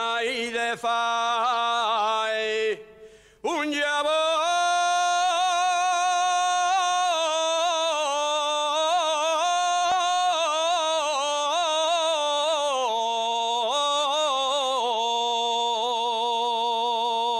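A man sings an Asturian tonada unaccompanied, in long ornamented phrases with the pitch wavering up and down. There is a short break for breath about three seconds in, then one long phrase that ends on a steady held note.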